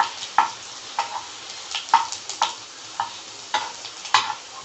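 Chopped garlic and mustard seeds frying in hot oil in a pan, a steady sizzle broken by sharp irregular clicks about twice a second.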